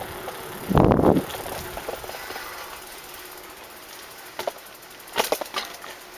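Bicycle rolling along a concrete trail: steady tyre and riding noise, one brief loud low rumble about a second in, and a run of sharp rattles and clicks near the end as the bike bumps over the concrete slabs.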